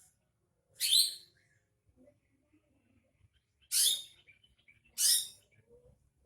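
Green leafbird (cucak ijo) giving three short harsh calls: one about a second in, then two close together near four and five seconds.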